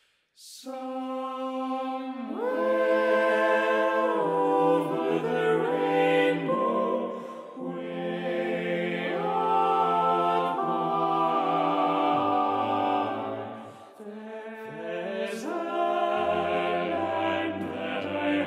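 Male vocal ensemble singing in close harmony, slow sustained chords that start about half a second in, with the bass line dropping lower a couple of times.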